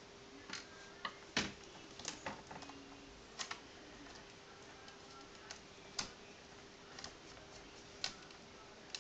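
Irregular light clicks and ticks of a small screwdriver and hands working the side screws of a laptop LCD panel, with a sharper knock about one and a half seconds in. A faint steady hum sits underneath.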